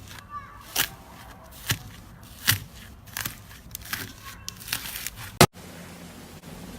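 Slime being squished and pulled by hand, giving sharp sticky pops and crackles about once a second. The loudest pop comes about five seconds in, and then the sound cuts to a quieter stretch.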